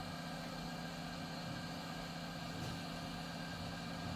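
TOKii HR70D hot air rework station's handpiece blower running at maximum air volume: a steady hum with the rush of air.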